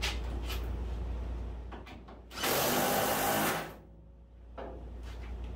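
A handheld power tool runs once for about a second and a half, tightening a body-mount bolt between the car body and the frame.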